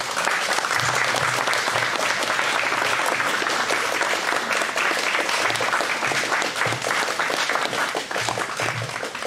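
Audience applauding, a dense patter of many hands clapping that starts suddenly and thins out near the end.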